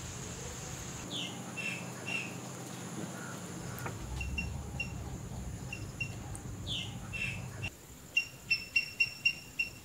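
Birds chirping with short calls over a steady high insect buzz; from about eight seconds in, one bird repeats a short sharp call about three to four times a second.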